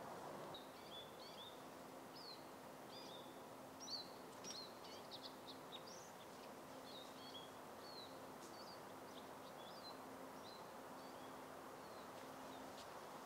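Small birds chirping and calling: many short, high chirps, busiest in the first half and thinning out later, over a faint steady hiss and low hum.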